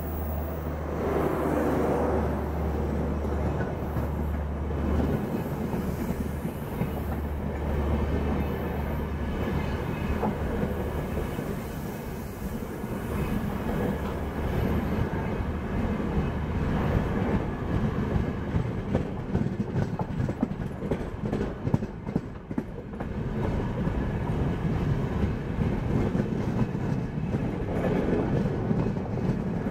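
Red LHB passenger coaches rolling past at speed, with a steady rumble and clickety-clack of wheels over rail joints. For the first several seconds a steady low hum runs under it, from the diesel generators of the luggage-and-generator power car.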